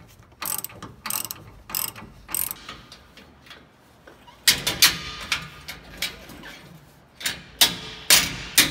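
Socket ratchet wrench clicking while a bolt on an exhaust hanger bracket is tightened: short runs of sharp clicks with pauses between them.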